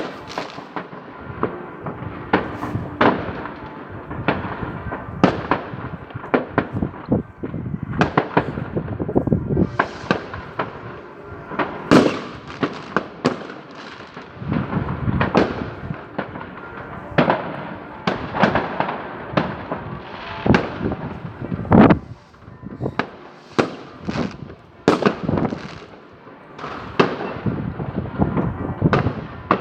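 New Year's Eve fireworks: a dense, irregular run of bangs and crackles from rockets and firecrackers going off, many overlapping, with the loudest reports about twelve and twenty-two seconds in.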